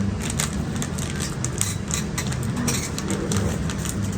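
Small plastic packets and containers of a slime kit being handled and opened: scattered clicks and rustles over a steady low hum.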